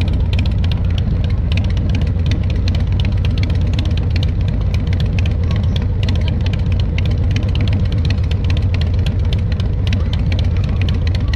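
Harley-Davidson V-twin motorcycle engine running steadily at low road speed.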